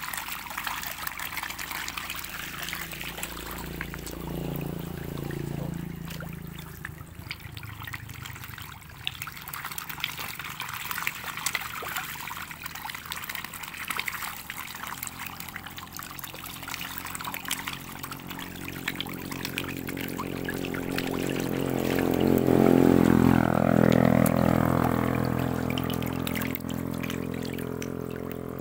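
A crowd of Sangkuriang catfish splashing and churning at the water surface in a feeding frenzy as feed pellets are scattered among them. A low droning hum swells, loudest about two-thirds of the way through, then fades.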